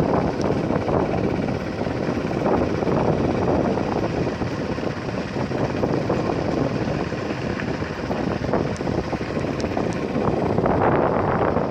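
Steady, rough wind buffeting on the microphone, mixed with the rumble of a moving vehicle.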